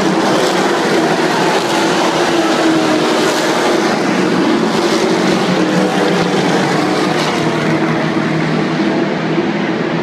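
Race car engines running flat out around an oval track: a loud, steady, multi-engine drone that swells a few times as cars pass close by.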